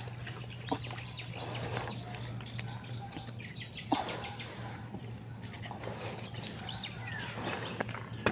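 Rural outdoor ambience: birds chirping and insects calling over a steady low hum, with a few sharp clicks, one about a second in and another about four seconds in.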